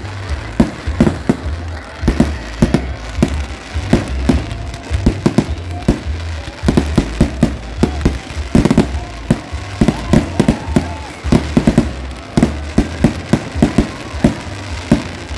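Aerial fireworks shells bursting in rapid, irregular volleys: a dense run of sharp bangs, often several a second, over a steady low rumble.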